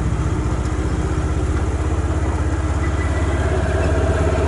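A vehicle engine running steadily with a low, evenly pulsing drone; a higher steady whine joins about three seconds in as it gets slightly louder.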